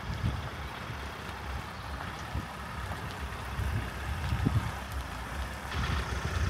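SUV towing a caravan pulling slowly away over gravel: low engine and tyre noise, with wind buffeting the microphone. The crunch of tyres on gravel grows louder near the end as the car passes close.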